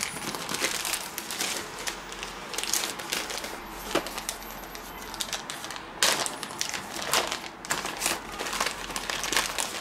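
Plastic bags crinkling and rustling as they are handled and pulled out of a cardboard box, with many irregular small crackles.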